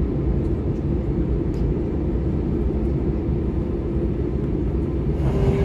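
Airbus A321 cabin noise while lining up on the runway for takeoff: a steady low rumble of the jet engines at low thrust, growing louder and fuller about five seconds in.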